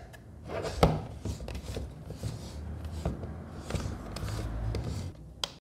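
Handling noise from a plastic Kimiso Bluetooth speaker being moved and turned over on a tabletop: a series of irregular clicks, knocks and rubbing over a low rumble. The sound cuts off abruptly near the end.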